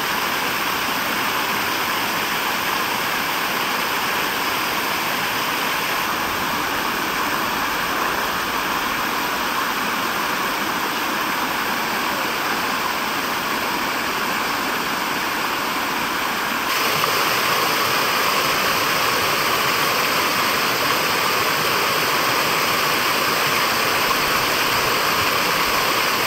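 Steady rush of falling water from a garden fountain cascade, a little louder about two-thirds of the way through.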